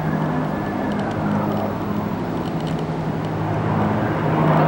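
Twin turboprop engines of a Grumman S-2T air tanker passing overhead with a steady drone that grows louder near the end as the plane comes closer.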